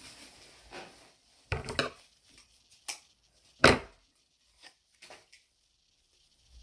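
Handling noise as clothes are taken up and moved about on a desk: a few brief knocks and rustles, the loudest about three and a half seconds in, then a few faint ticks.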